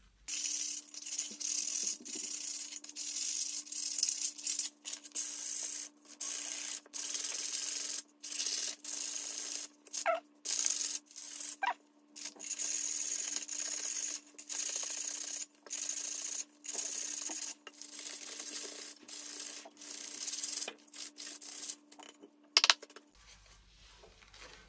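Hand sanding: a sheet of P180 sandpaper rubbed in repeated hissing strokes, about one a second, over the metal of a tin can's lid. The strokes stop shortly before the end.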